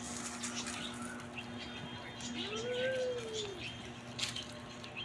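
A cat meowing once about halfway through: a single call that rises and then falls in pitch. A steady low hum runs under the first half.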